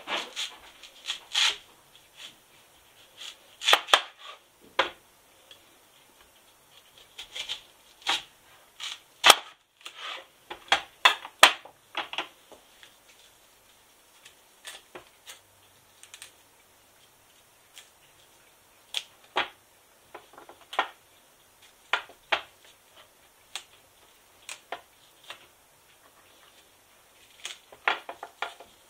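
Kitchen knife cutting an onion on a plastic cutting board: irregular sharp clicks and taps of the blade meeting the board. They come thick in the first half and more sparsely after that, while the slices are separated into rings.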